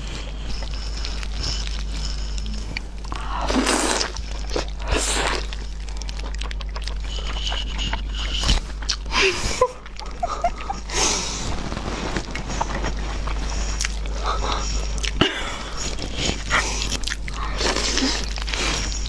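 Gloved hands squishing and pulling at a large piece of boiled meat soaked in sauce, in irregular wet bursts, with biting and chewing near the end. A low steady hum runs underneath.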